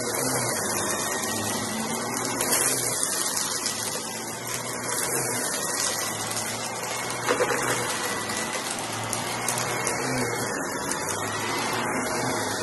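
Corded stick vacuum running steadily with a high whine while its floor head is pushed over a thick shag rug, with a couple of brief crackles along the way.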